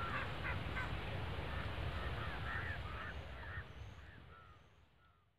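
Birds calling outdoors in a string of short, curved chirps over a low background rumble, the whole fading out near the end.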